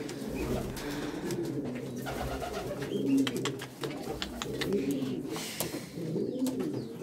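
Pouter pigeons cooing: low, wavering coos repeated over and over, with scattered light clicks.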